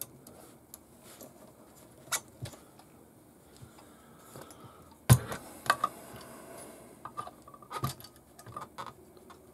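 Hard parts of a King Kong RC Q157 crawler chassis clicking and knocking as it is handled and turned over, scattered light clicks with a sharp knock about five seconds in and a few more near the end.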